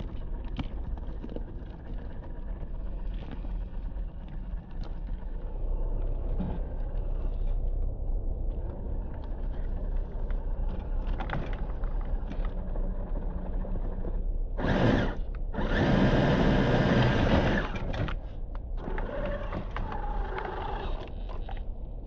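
Small electric motor and gearbox of a Traxxas TRX-4 RC crawler whirring at slow crawling speed, with light ticks and clicks. A much louder rushing noise comes in twice, briefly about fifteen seconds in and then for about two seconds.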